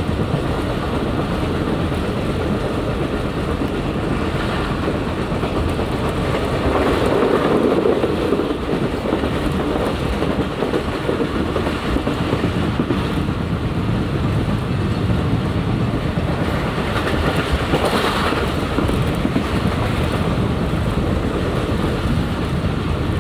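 Shalimar Express passenger train running along the line: a steady rumble and rail noise with no let-up, swelling louder for a moment about a third of the way in.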